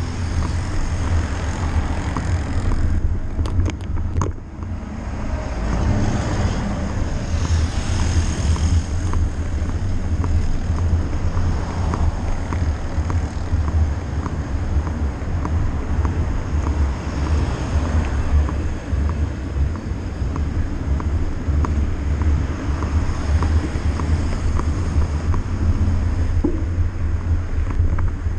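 Steady wind buffeting and deep rumble on a bicycle-mounted action camera's microphone as the bike rolls along a paved city street, with road traffic in the background.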